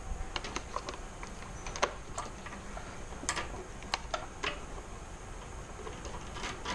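Irregular small clicks and taps from hands handling wiring and plastic connectors, with a few sharper clicks around the middle.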